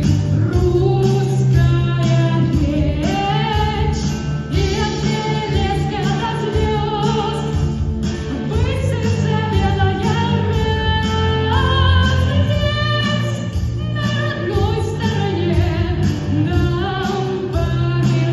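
A rock band playing live, with a singer's held melody over bass guitar and drums.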